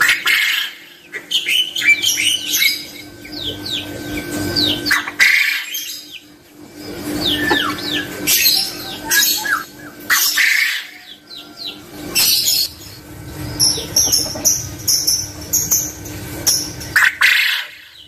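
Caged quail calling: many short, falling chirps and whistles, overlapping as from more than one bird, over a steady faint hum.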